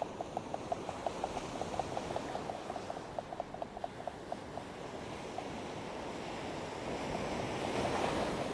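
Alvey sidecast reel ticking rapidly and evenly as line is wound in against a hooked fish, stopping about halfway through. Surf washes steadily underneath and swells near the end as a wave breaks.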